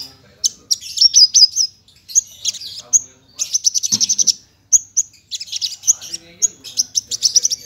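Javan bush lark (branjangan, parva race) singing: bursts of rapid, high chirped and trilled notes in varied phrases with short gaps between them, the longest phrase starting about five seconds in.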